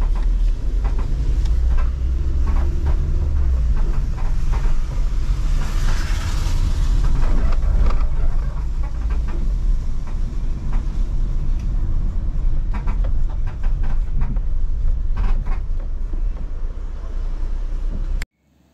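Ford car driving, heard from inside the cabin: a steady low engine and road rumble with frequent small rattles and clicks. A hiss swells briefly about six seconds in, and the sound cuts off abruptly near the end.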